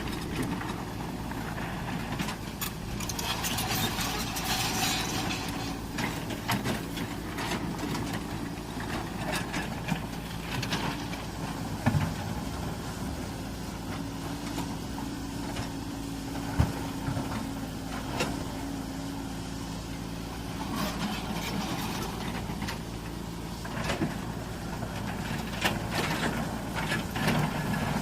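Diesel engine of a large Caterpillar excavator running steadily, with a few sharp knocks now and then.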